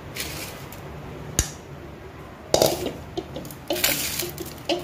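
Metal spoon scraping and knocking soft cooked semolina-and-milk dough off onto a metal plate: a sharp clink about a second and a half in, then clattering scrapes near the middle and again toward the end.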